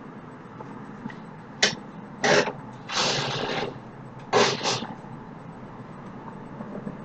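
A person coughing in a short fit: five noisy coughs between about a second and a half and five seconds in, the middle one longer than the rest.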